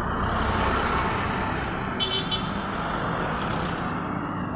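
Street traffic: cars and motorcycles running by, with a short high-pitched toot about two seconds in.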